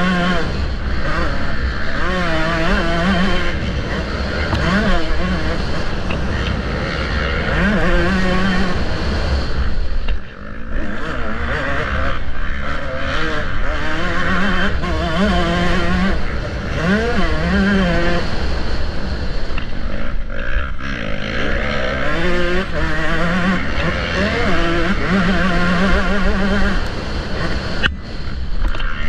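Motocross bike engine heard from onboard at race pace, its pitch climbing hard under throttle and falling away through gear changes and corners, over low wind rumble on the microphone. The throttle is shut briefly about ten seconds in and again about twenty seconds in.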